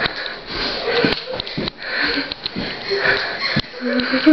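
A person breathing hard and noisily close to the microphone, a rush of air about once a second, with a few short handling knocks and a brief voiced sound near the end.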